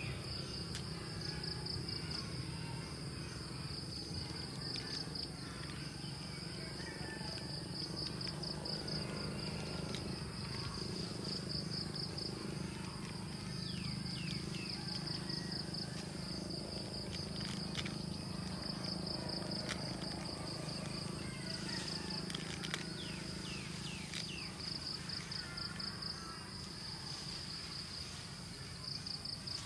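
Insects trilling in a high, rapidly pulsed chorus that comes in repeated runs, over a steady low hum, with a few short falling chirps.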